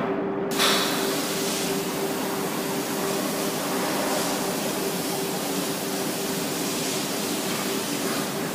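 Steady, loud industrial rushing noise with a constant hum running under it. A brief louder hiss comes about half a second in.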